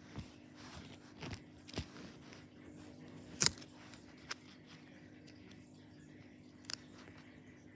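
Small plastic toy parts being handled, giving scattered sharp clicks and knocks, the loudest about three and a half seconds in, over a faint steady hum.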